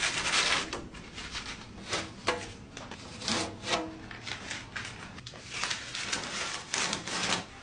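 A series of irregular short rubbing or scraping strokes, about two a second, some with a brief squeak.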